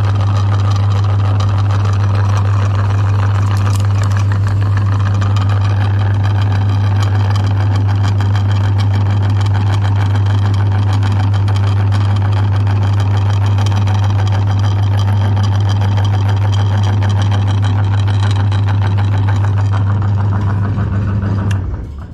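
Electric meat grinder running with a loud, steady motor hum and rattle. About 21 seconds in it is switched off and quickly winds down.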